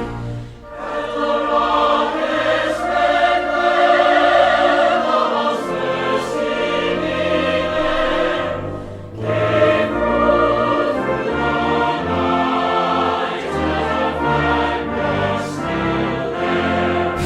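Choral and orchestral background music, a choir singing over orchestra, with brief drops in level about half a second in and again around nine seconds.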